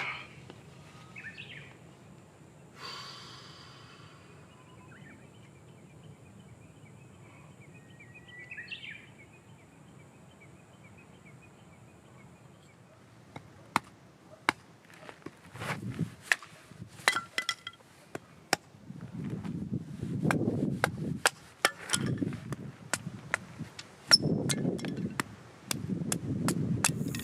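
Quiet outdoor ambience with a few short chirping calls. About halfway in, a run of sharp clicks and dull thuds begins and grows louder toward the end.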